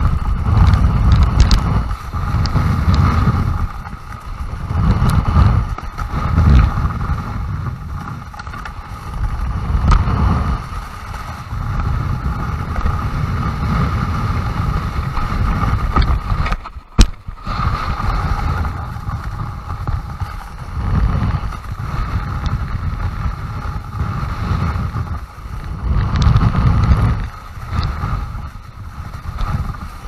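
Snowboard sliding and carving over machine-groomed man-made snow, heard from a camera mounted on the board's nose: a continuous scraping hiss with low rumbling swells every few seconds as the board turns and wind buffets the microphone. About halfway through there is one sharp knock and a brief dip in the sound.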